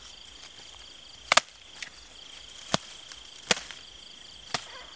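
Four sharp knocks at irregular intervals, the loudest a double knock about a second and a half in. Under them runs the steady, high, pulsing chirr of night-field insects.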